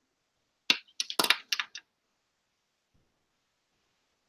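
A quick run of about seven sharp clicks within about a second, starting just under a second in, from someone working a computer close to the microphone.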